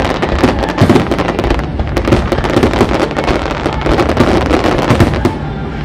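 Fireworks display: a dense, rapid run of bangs and crackles with no let-up.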